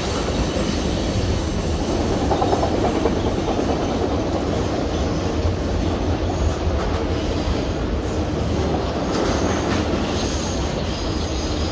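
Freight train cars rolling past at steady speed: a continuous rumble and clatter of steel wheels on the rails.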